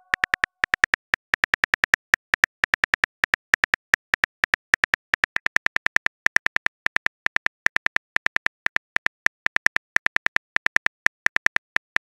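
Phone-keyboard typing sound effect: rapid, identical short clicks, several a second at an uneven pace, one for each letter typed into a text message.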